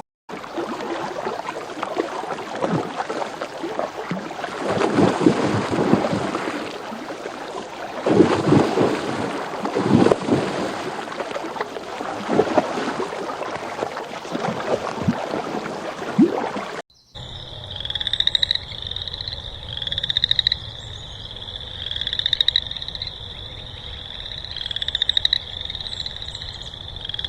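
Frogs calling: a dense, loud chorus for most of the first part. After an abrupt cut, high trilling calls come in repeated bouts every couple of seconds, each growing louder.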